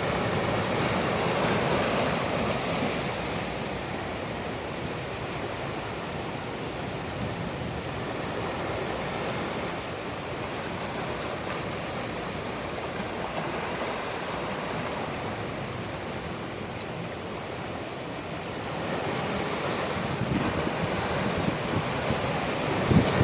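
Ocean waves washing onto the shore in a steady surge that swells and eases, with wind buffeting the microphone. The wind gusts grow stronger near the end.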